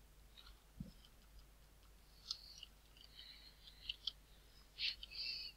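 Faint computer keyboard keystrokes: a scattering of soft, irregular clicks as a command is backspaced and retyped.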